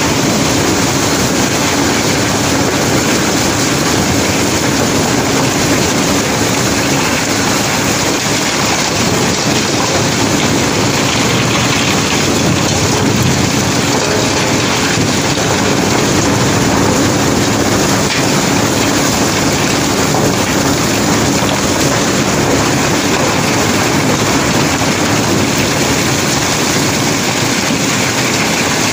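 Continuous clatter of river cobbles and gravel sliding down a pile in a cargo boat's hold during unloading, over a steady machine hum.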